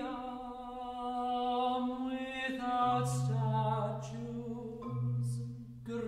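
A tenor singing long held notes with a slight waver, accompanied by a marimba. A steady low marimba note comes in underneath about three seconds in.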